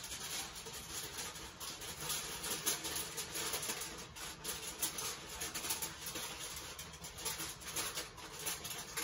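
Aluminum foil crinkling with irregular crackles as it is shaped and pressed down over the top of a cheesecake pan.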